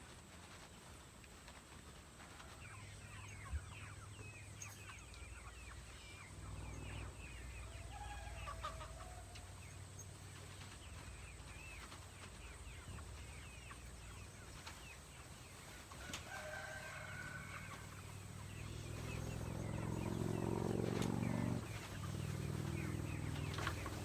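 Meat chickens clucking and peeping, with many short high calls throughout and a few lower clucks. A low rumble builds about four-fifths of the way in, becomes the loudest sound, and cuts off suddenly shortly after.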